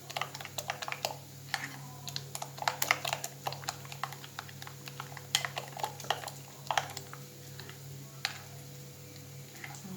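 A utensil clicking against a bowl while stirring a mixture of tuna and beaten eggs, in quick irregular taps with a short lull near the end.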